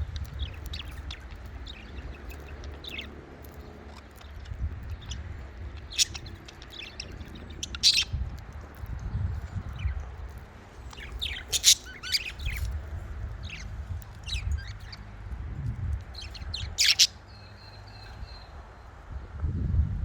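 Budgerigars chirping and squawking in short, irregular calls, with a few louder squawks, over a steady low rumble.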